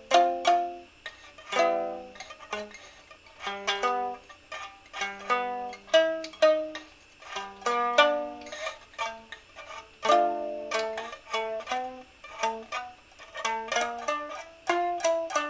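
Solo instrumental improvisation: a free-flowing melody of single notes and chords, each sharply attacked and left to ring away, several notes a second.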